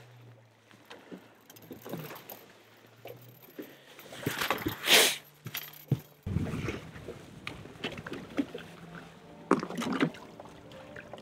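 Small clicks, knocks and light rattles aboard a fishing boat, over a faint low steady hum. A brief, loud rushing noise comes about five seconds in, and a shorter one near the end.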